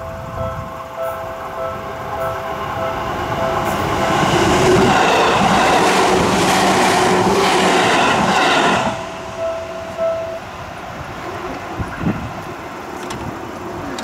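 Level-crossing warning bell ringing in a steady repeating two-tone ding, as an electric commuter train comes up and passes close by. The train is loudest from about four to nine seconds in, and the bell stops a little after ten seconds.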